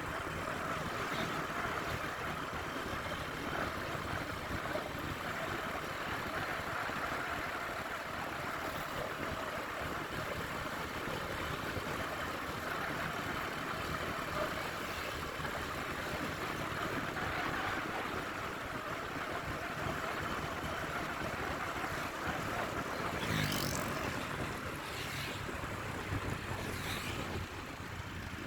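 Road traffic with vehicle engines running steadily, with a few short, sharp, high sounds near the end.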